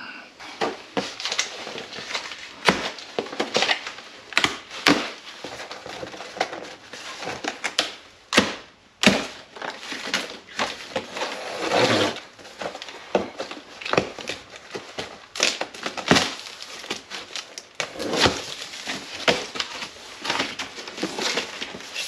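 Cardboard shipping box being opened by hand: plastic strapping bands cut, packing tape slit along the seam with a knife, and cardboard flaps pulled open. It comes as an irregular run of sharp snaps, scrapes and crinkles.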